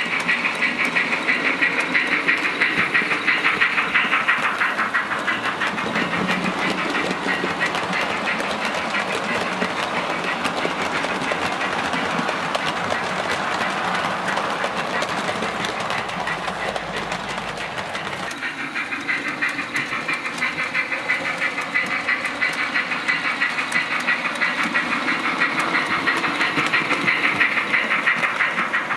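Model trains running along the track of a model railway: a steady mechanical running sound with rapid fine clicking of wheels over the rails. The sound shifts about 18 seconds in, as a different train passes close by.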